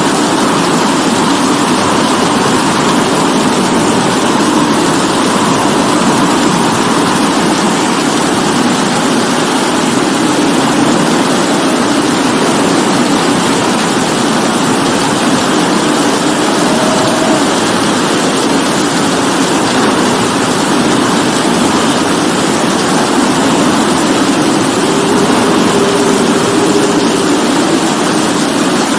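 Steady rain falling, an even hiss with no breaks or changes in strength.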